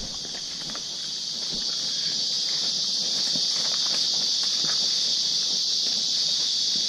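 Steady high-pitched drone of insects calling in chorus, growing a little louder about two seconds in, with irregular footsteps on a leaf-littered dirt trail beneath it.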